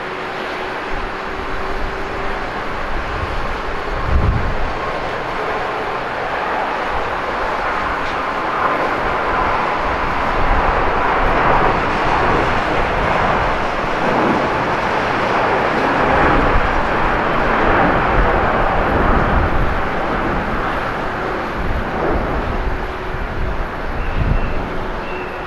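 Airbus A350-900's Rolls-Royce Trent XWB turbofans at takeoff power as the jet rolls, lifts off and climbs away. The jet roar builds to its loudest in the middle and eases slightly near the end, with a brief low thump about four seconds in.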